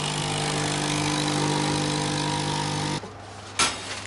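Electric milk frother running with a steady whirring hum that stops abruptly about three seconds in. A single sharp knock follows near the end.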